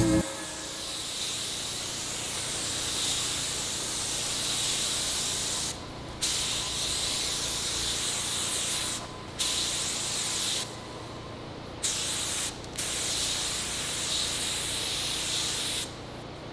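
Spray gun spraying PVA (polyvinyl alcohol) release film onto composite molds: a steady hiss in long runs of a few seconds each, with short breaks between passes, stopping shortly before the end.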